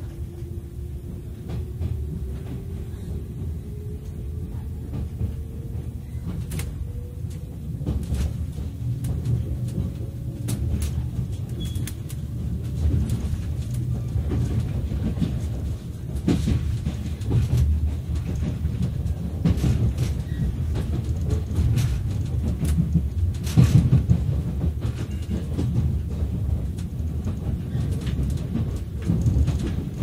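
Inside a 485-series electric express train car pulling away and gathering speed: a low running rumble that grows louder, a faint whine rising in pitch over the first ten seconds, and sharp clacks as the wheels cross rail joints and points, the loudest about three quarters of the way through.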